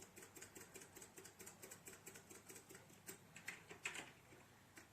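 Faint rapid clicking from computer keyboard keys being tapped, with two louder clicks about three and a half seconds in.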